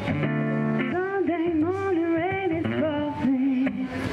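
Live acoustic guitar strummed under a sung melody, the voice gliding and wavering between notes, amplified through small PA speakers.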